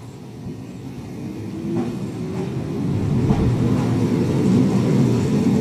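Izuhakone Railway 7000 series electric train pulling away from the platform, growing steadily louder as it gathers speed, with a rumble and a faint whine rising in pitch from its motors.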